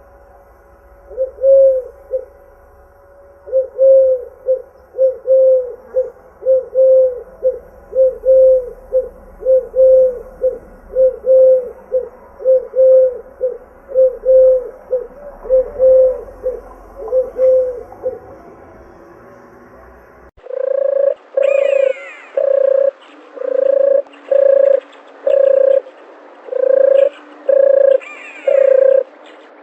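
Doves cooing: a long run of short, evenly repeated coos, about two a second, which stops about 18 seconds in. After an abrupt cut about 20 seconds in comes a second recording of longer, steadier coos at the same pitch, with small birds chirping higher up.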